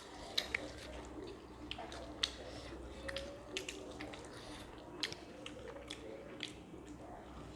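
Faint eating sounds: scattered small wet clicks and smacks of a mouth chewing, over a low steady room hum.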